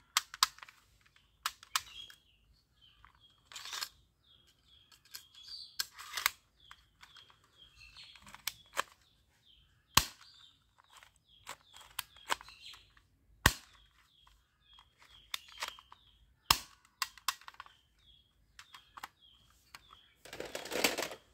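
Black plastic toy pistol clicking as it is handled: a dozen or so sharp, scattered clicks, with a longer clatter near the end. Birds chirp faintly in the background.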